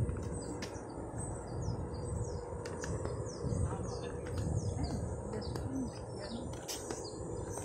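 Small birds chirping: short high calls that fall in pitch, repeated about twice a second, over a steady low rumble.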